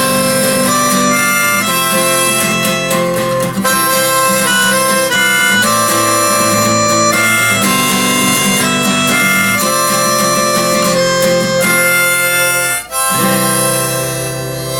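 Instrumental music: harmonica playing over acoustic guitar, with a brief break about thirteen seconds in before the music picks up again.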